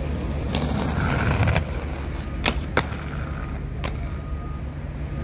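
Skateboard wheels rolling over concrete paving, then sharp clacks of the board hitting the ground: two close together about halfway through and a third about a second later.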